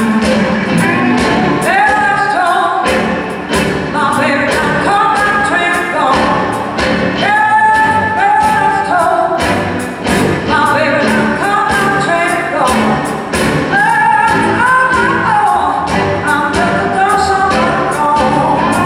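Live blues band playing, with electric guitars, bass guitar and drums, and a woman singing lead.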